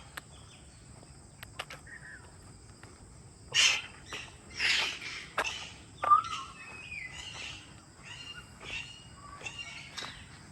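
Birds calling in park trees: several loud, harsh calls a few seconds in, then short whistled chirps at differing pitches, over a faint steady high-pitched tone.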